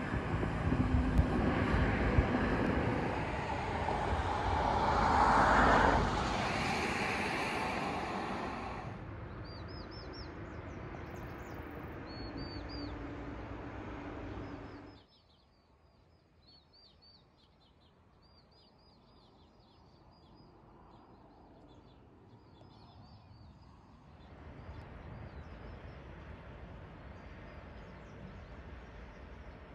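Motor traffic on a road bridge passes close by, loudest about six seconds in, then fades. Small birds then chirp in quick repeated calls over a faint steady hiss.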